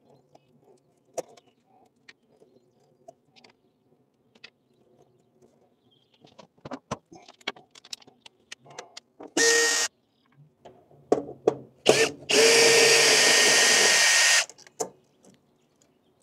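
Cordless drill/driver running in two bursts, a short one about nine seconds in and a longer one of about two seconds near the end, taking out the screws that hold an air conditioner's contactor. Before the drill, scattered light clicks and taps of wires and parts being handled.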